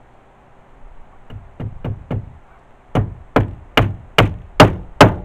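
A hammer driving a nail through bitumen roofing felt into a wooden roof board: a few light taps to start the nail, then six hard, evenly spaced blows, a little over two a second, to drive it home.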